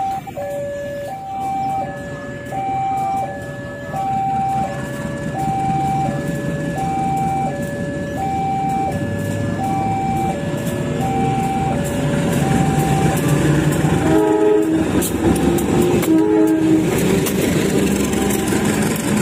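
Level-crossing warning alarm sounding its two alternating tones while a CC201 diesel-electric locomotive running light approaches, its engine rumble growing louder. About two-thirds of the way in, the locomotive gives two short horn blasts, then passes close with its diesel engine loudest near the end.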